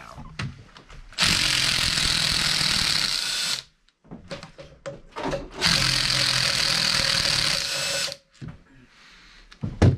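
A power drill-driver runs in two steady bursts of about two and a half seconds each, backing out bolts on a Kawasaki four-stroke jet ski engine to free the timing chain tensioner. Small metal clinks fall between the bursts, and a knock comes near the end.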